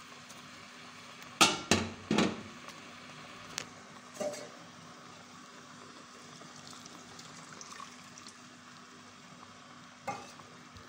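A steel spoon knocks and scrapes against a metal pot several times in the first few seconds while vermicelli is stirred in milk, then a faint steady bubbling and sizzling as the milk, sugar and vermicelli boil on high heat. One more knock comes near the end.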